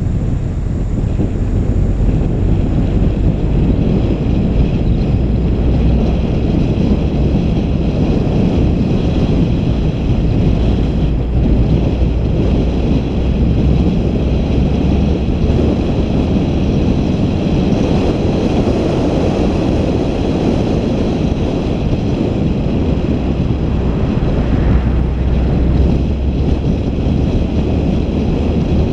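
Steady rush of a vehicle travelling on the road, with wind buffeting the microphone; faint steady high tones run underneath.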